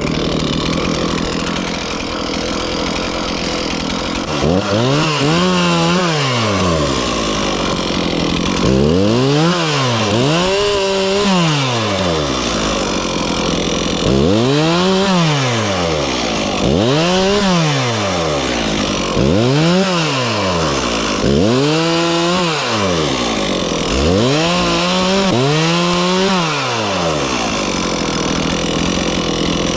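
Two-stroke chainsaw cutting up wood. It runs steadily at first, then from about four seconds in the engine pitch rises and falls over and over as the saw revs and cuts.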